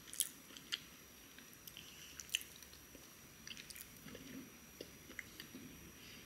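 Faint close-miked eating sounds: a metal fork clicking against a ceramic plate as it presses into dense chocolate fudge bar pieces, with a few sharper clicks and soft chewing between.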